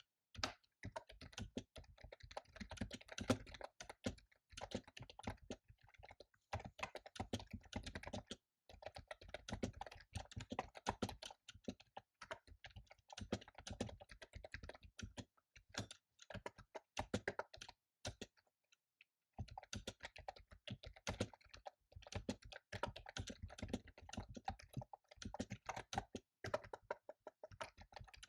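Fast typing on a computer keyboard: rapid runs of key clicks with brief pauses between bursts, one pause lasting about a second about two-thirds of the way through.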